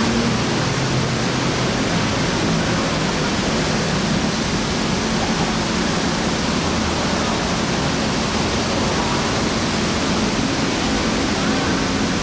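Steady rushing noise of nearby street traffic, with a faint low engine hum underneath.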